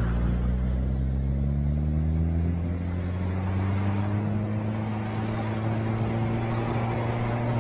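Semi-truck tractor's diesel engine pulling hard, its revs climbing slowly over the first few seconds and then holding steady, as the cab slides round on snow with its drive wheels spinning.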